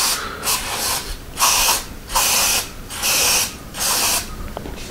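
Aerosol can of Würth brake cleaner sprayed in about six short hissing bursts, each about half a second long, with brief pauses between them.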